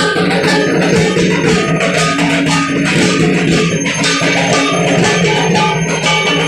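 Temple aarti accompaniment: bells ringing and drums beating in a fast, continuous rhythm, loud and unbroken.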